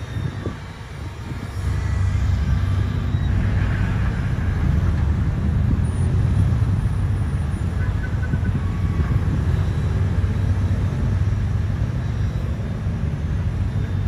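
Caterpillar wheeled excavator's diesel engine running while the machine digs and swings its boom: a steady low rumble that grows louder about a second and a half in and then holds.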